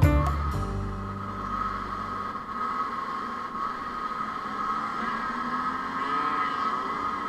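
Two-stroke engine running at high revs: a steady, high-pitched buzzing drone that holds a nearly even pitch throughout.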